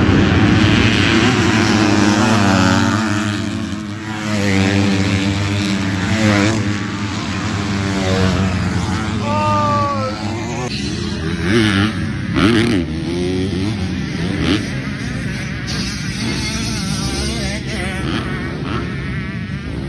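A field of motocross dirt bikes racing away from the start, many engines revving together. Further on, single bikes pass close, their engine pitch rising and falling as they go by.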